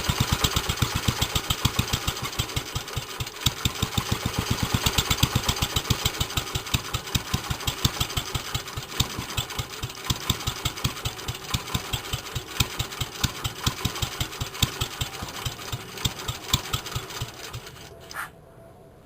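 1946 J.A.P. Model 5 single-cylinder side-valve four-stroke stationary engine running with steady, evenly spaced firing beats, then dying about eighteen seconds in with one last short puff. It is stopping after its fuel tap has been shut off.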